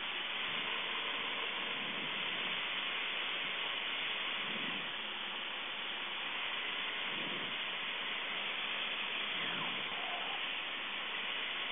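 Steady hiss of engine and airflow noise in the cabin of a Cessna 152 in flight.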